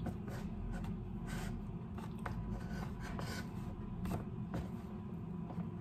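Cheesecloth rustling and rubbing against a woven bamboo sticky-rice basket as hands push and adjust the cloth lining, in short irregular scratchy strokes. A steady low hum runs underneath.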